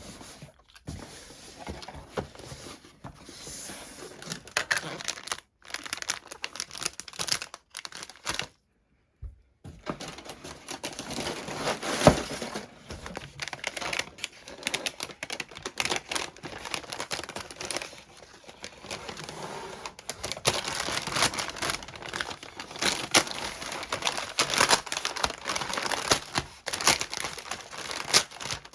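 Packaging crinkling and tearing as parcels are unwrapped by hand, in irregular rustles and snaps with a short break about nine seconds in.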